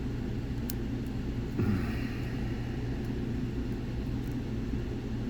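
A lock pick working the pins of a Dom 333RN lock: a faint click about a second in and a brief scrape near two seconds, over a steady low background rumble.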